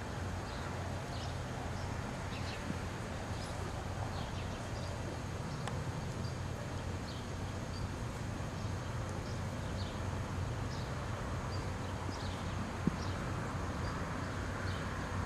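Faint hoofbeats of a foal walking and trotting on a sandy paddock, under a steady low rumble, with small birds chirping now and then.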